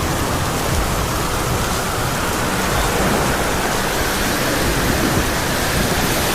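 Heavy rain pouring down: a loud, steady, dense hiss.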